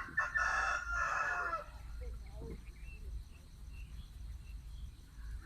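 A single long animal call with a steady pitch, lasting about a second and a half at the start, then only faint background sounds.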